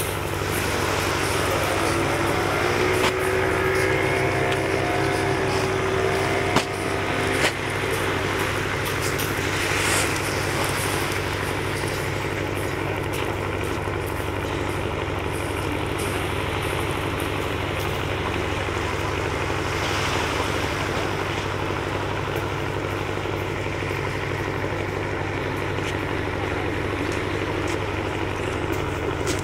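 Cargo landing craft's engines running steadily while beached with its ramp down, a constant low hum.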